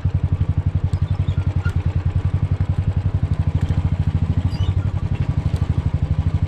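An engine running steadily close by, a fast, even low throb that does not change.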